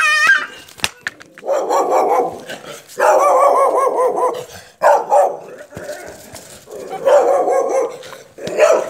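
A dog barking in fast runs of yaps, about five runs of a second or so each, loud.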